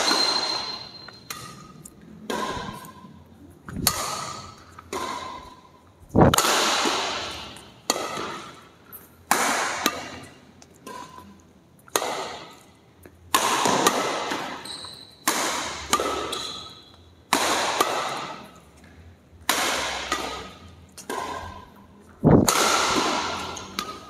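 A shuttlecock struck back and forth with badminton rackets in a rally, a sharp hit about every second or so, each ringing out with a long echo in the hall. Short high squeaks come between some of the hits.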